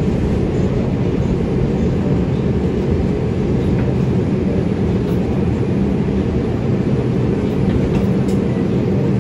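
R142 subway train running on elevated track, a steady low rumble of wheels and motors with a faint steady hum, as it slows to a stop at a station platform.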